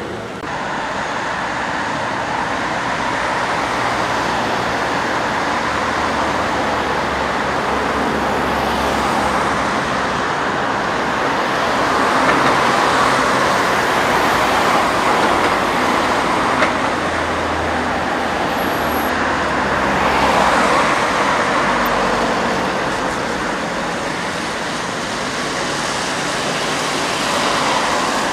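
Street traffic: cars and an articulated trolleybus passing close by on a city street. The tyre and road noise is steady and swells as each vehicle goes past, about three times.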